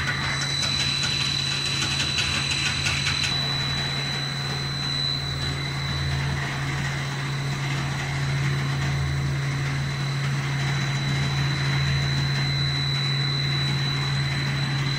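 Snack pellet extruder running steadily: a constant low hum with a thin, high, steady whine above it.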